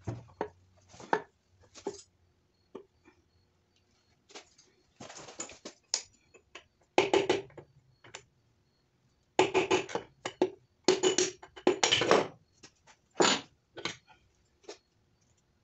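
Metal engine parts clanking, knocking and scraping in irregular clusters as a connecting rod and piston are worked loose from a torn-down Honda D16Y7 block, whose bottom end is damaged by a spun rod bearing.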